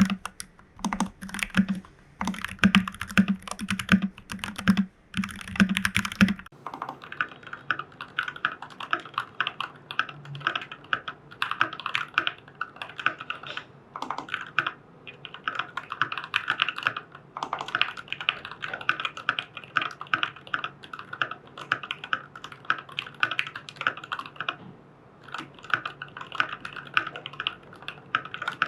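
Continuous typing on a FEKER 84 mechanical keyboard with Jwick Black v2 Nylon linear switches and PBT keycaps: a dense, rapid clatter of keystrokes. About six seconds in, the sound abruptly turns lighter and thinner, losing its deep undertone.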